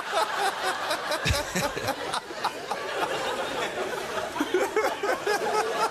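Studio audience laughing.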